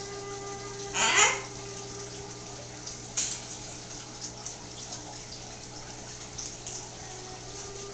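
A green-winged macaw gives one loud, harsh squawk about a second in that drops in pitch, then a shorter, fainter call at about three seconds, over a steady background hum and hiss.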